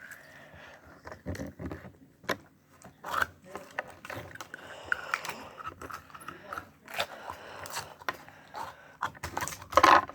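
Hands handling a plastic slime container and its packaging: irregular scrapes, crinkles and sharp little clicks.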